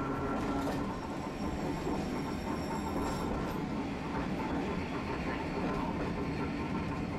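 Tosaden streetcar running, heard from inside the car: a steady rumble and rattle of the car body and wheels on the rails. A faint, thin high-pitched whine sounds for about two seconds near the start.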